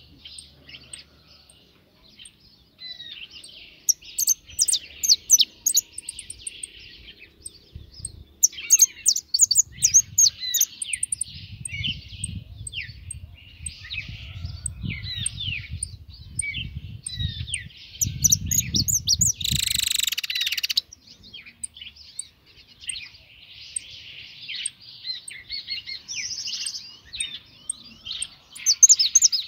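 European goldfinch singing: a long, continuous run of fast twittering, trills and quick chirps. A low rumble builds through the middle, and a brief loud rush of noise comes about twenty seconds in.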